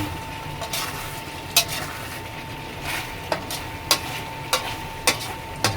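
A utensil stirring eggplant into a pan of simmering chicken adobo, with a light sizzle and sharp clicks of the utensil knocking against the pan about once a second.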